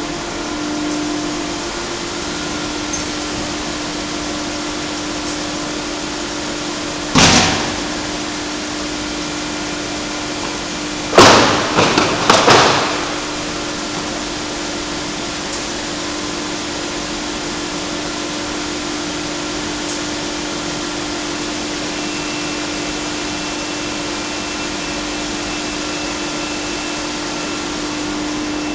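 Battenfeld BEX 1-90-30B plastic pipe extrusion line running with a steady machine hum. One loud knock comes about seven seconds in, and a clatter of several knocks follows around eleven to thirteen seconds.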